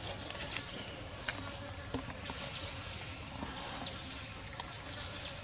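Insects buzzing in a steady high drone that swells in short repeated sweeps, with a few faint clicks.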